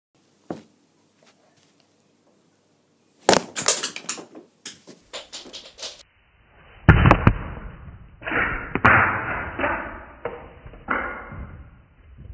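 Plastic Lego bricks being smashed and breaking apart: a run of sharp cracks and clattering pieces, then several heavier crashes with scattering clatter, the loudest about seven seconds in.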